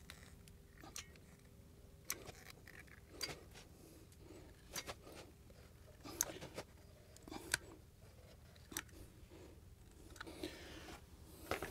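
Manual sealant gun squeezed repeatedly while laying a bead of grab adhesive, giving faint, short metallic clicks from its trigger and plunger rod about once a second.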